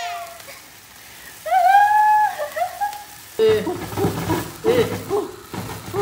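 A fountain sparkler candle fizzing with a steady crackling hiss, and a toddler's short wail about a second and a half in.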